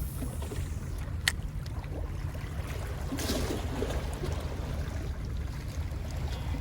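Steady wind rumble on the microphone with sea washing against the rocks, a short wash of surf about three seconds in, and one sharp click about a second in.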